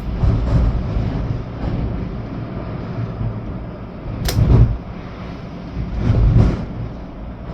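Storm-force wind rumbling steadily, with two stronger gusts buffeting the microphone a little over four seconds in and again about six seconds in.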